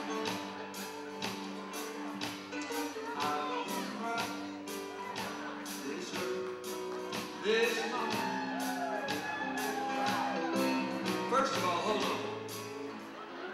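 Live acoustic guitars strummed in a steady rhythm, a little over two strokes a second, with a man singing a melody over them.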